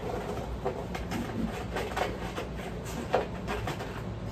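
Rummaging in the bottom drawer of a makeup tote: small makeup items and plastic containers knocking and clicking against each other, a few sharper clicks among them.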